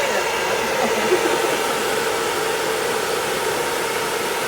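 Hair dryer blowing steadily, an even rushing noise with a constant hum.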